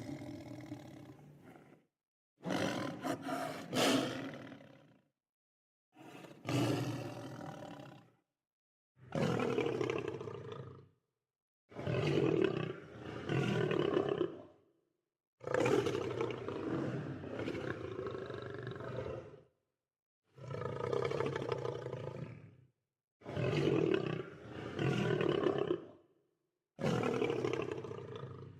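Lion roaring and growling in a string of about nine separate calls, each two to four seconds long, with dead silence between them.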